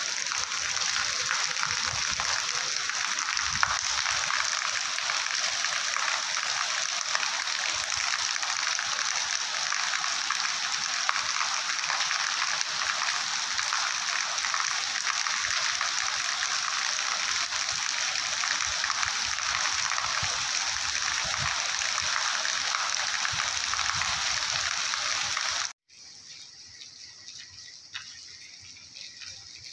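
Heavy rain pouring onto a wet tiled pavement: a loud, steady hiss. About 26 s in, it cuts abruptly to much fainter rain with a few separate drips.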